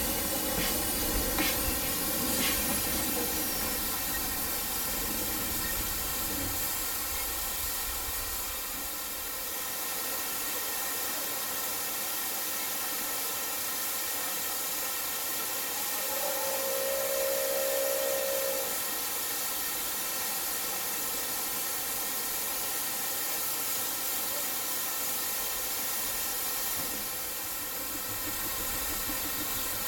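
Narrow-gauge steam locomotives standing in steam, hissing steadily throughout. About halfway through, a steam whistle sounds one steady note for a little over two seconds.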